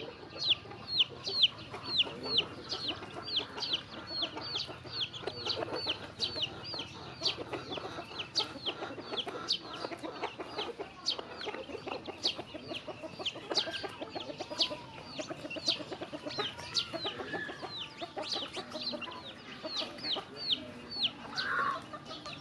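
Chicks peeping steadily, a quick string of high falling peeps a couple of times a second, over softer, lower clucking from the hen.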